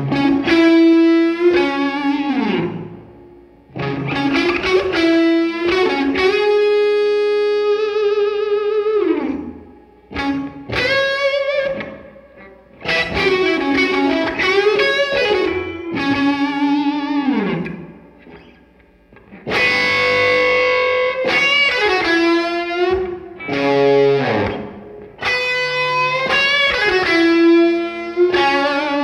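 Dunamiz DZ58 Les Paul-style electric guitar with Fullertone Kalamazoo 57 humbucker pickups, played through a Vox AC30 valve amplifier: lead phrases of single notes with sustained notes shaken by vibrato and runs sliding downward, broken by short pauses as notes ring out.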